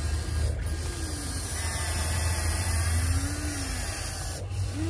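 Huina 1593 RC excavator's small electric motors and gearboxes whirring in short spells as the upper body swings and the arm moves, the whine rising and falling in pitch.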